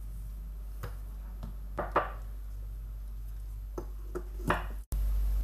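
A few light taps and clinks of a glass sugar jar and a plastic measuring cup being handled while sugar is shaken out, over a low steady hum. The sound cuts out for an instant near the end.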